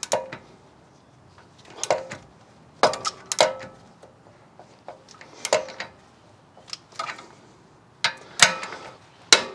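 Metal hand tools working on a Jeep's front steering knuckle while the upper ball joint nut is torqued: about ten irregular sharp metallic clicks and clinks, some ringing briefly.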